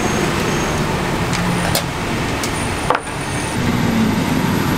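Steady hiss of dough sticks deep-frying in a wide wok of hot oil, mixed with street traffic noise. A few sharp clicks through the middle, from chopsticks knocking on the wok.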